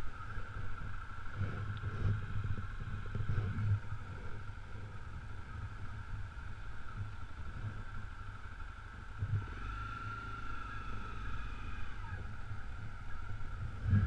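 Honda CRF250L's single-cylinder four-stroke engine running at low speed on a dirt track, with uneven low thumps from throttle and bumps over a steady high-pitched whine.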